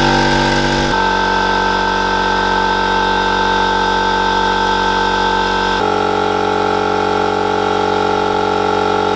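Parkside PKO 270 A2 24-litre oil-lubricated air compressor running loudly just after being switched on, its motor and piston pump charging the tank toward the 8-bar cut-out. The steady running sound shifts in tone abruptly about a second in and again near six seconds.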